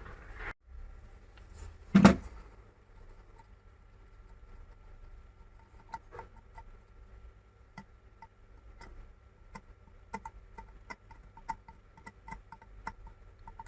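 Light, irregular clicking and ticking of a small hand tool working on an LED lamp's circuit board, with one sharper knock about two seconds in.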